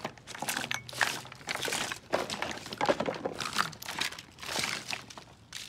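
Hands rummaging through a pile of dirty plastic makeup tubes, bottles and compacts on a wooden deck: irregular rustling, crinkling and light clattering as items are picked up and set down.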